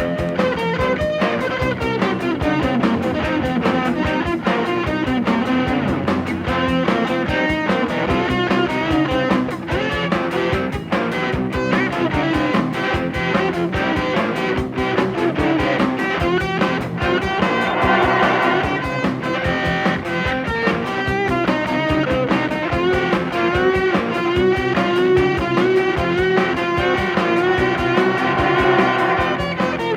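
Instrumental passage of a 1980s German rock band recording, led by guitar with no vocals.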